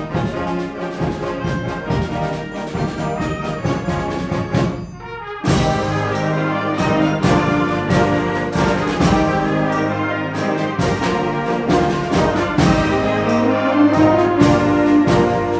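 A youth concert band of brass, woodwinds and percussion playing. About five seconds in the music breaks off for a moment, then the full band comes back in louder, with regular percussion strikes and a rising line near the end.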